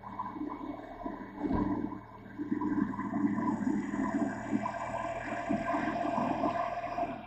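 Motorcycle engine running steadily at low speed under a rushing, watery noise of tyres on the wet road.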